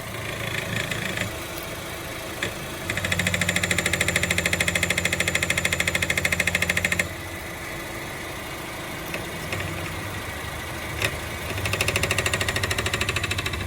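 Honda Fit idling in drive, with a fast buzzing rattle from under the car that comes in for about four seconds, then again near the end. This noise sounds only in drive at idle and goes away when the engine is revved. It comes from a part under the car that the mechanic cures by removing it.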